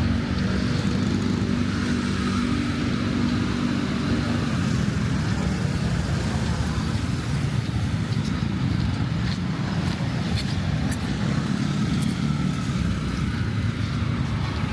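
Road traffic of cars and motorbikes running steadily past, with a continuous engine rumble.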